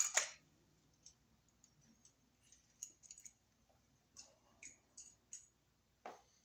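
Scattered small clicks and taps of a wall receptacle and its wires being handled, with a sharper knock about six seconds in.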